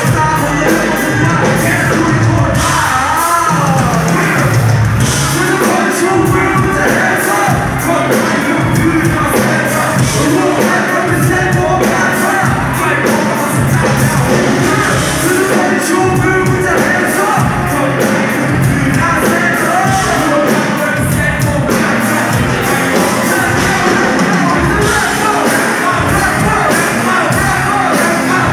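Live band music with a vocalist singing over a steady drum beat, loud and continuous, heard from within the audience.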